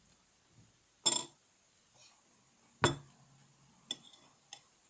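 A utensil clinking sharply against dishware, four times: two loud clinks about a second and about three seconds in, the second ringing briefly, then two fainter ones, as glue sticks are cut up for slime.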